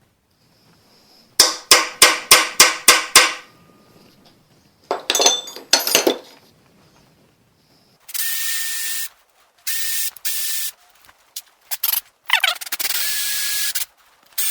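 A run of about seven sharp, evenly spaced clicks, then a rattle of clicks, then an electric drill run in several short bursts of steady whirring, starting and stopping.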